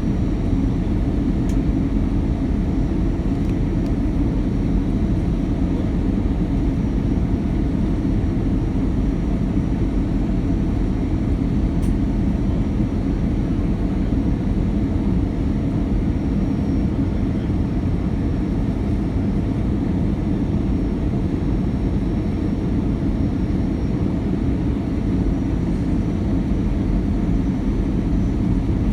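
Steady low rumble of an Airbus A319 heard from inside the passenger cabin: engine and airflow noise at an even level, with a couple of faint ticks.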